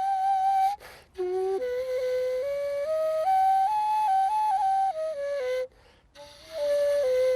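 Solo melody on a Kazakh sybyzgy, an end-blown flute: held notes stepping up and down between pitches, with two short breaks, one about a second in and one near six seconds.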